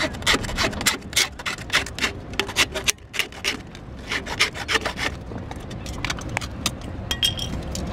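Metal file scraping in quick strokes across the top rim of an aluminium pop can, about three or four strokes a second with a short pause about three seconds in, wearing at the rim to take off the lid.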